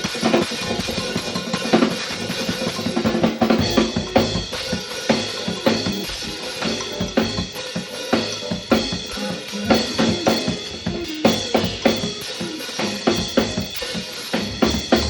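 Live band jamming, led by a drum kit: kick drum, snare and rimshot hits keeping a steady groove, with other instruments playing sustained notes over it.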